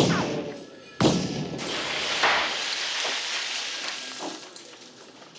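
Two sharp revolver blasts about a second apart from a .44 Magnum Smith & Wesson Model 629. The second is followed by a long noisy tail that dies away over about three seconds.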